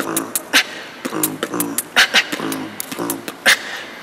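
Beatboxing: a mouth-made beat that puts together snare, kick-drum and timbal sounds, sharp percussive strokes with a low hummed tone running between them.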